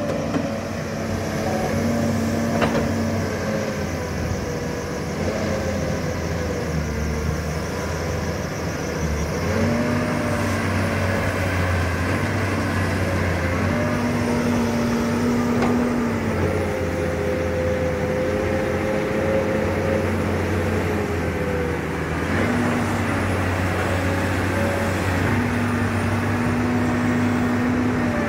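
Hydraulic excavator's diesel engine running under load. Its pitch steps up and falls back every few seconds as the machine works its hydraulics.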